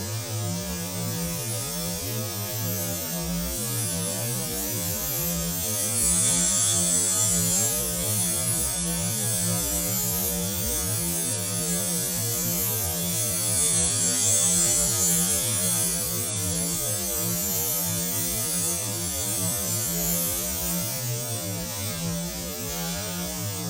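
Valve seat machining machine running on a cylinder head, a steady electric motor hum with a high hissing sound that swells twice, about six and fourteen seconds in, as the level rises.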